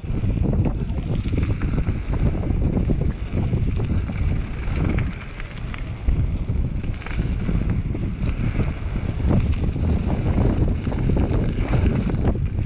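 Wind buffeting the microphone of a bike-mounted or helmet action camera on a fast mountain-bike descent, over the crunch of tyres on loose gravel and the rattle and knock of the bike over bumps.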